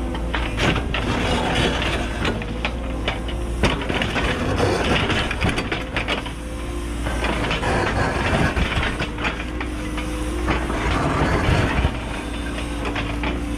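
Cat 314E excavator ripping extremely hard volcanic rock with a single-shank ripper: the steel shank scrapes, grinds and cracks through the rock in many sharp knocks, over the steady drone of the diesel engine and hydraulics working under load.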